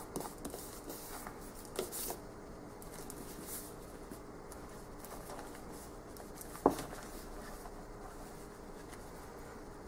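Hands handling a cardboard deck box: soft rubbing and rustling of cardboard in the first two seconds, then a single sharp click about two-thirds of the way through.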